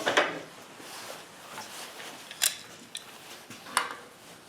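Metal parts of a snow plow's hydraulic angle ram clinking and scraping as the resealed assembly is worked into the tube and the threads of the collar are started: a short scrape at the start, then three sharp clicks.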